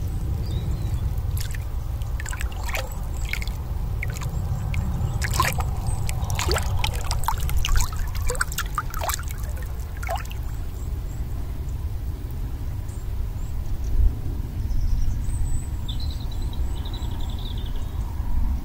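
Water splashing and trickling in many short bursts at the lake's edge as a released carp swims off, over a steady low rumble; the splashing dies away after about ten seconds.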